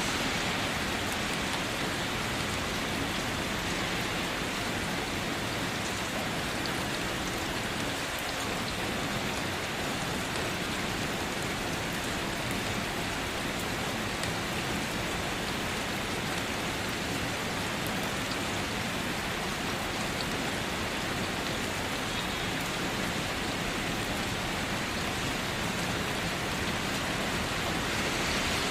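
Light rain falling steadily, an even hiss of drops that holds the same level throughout.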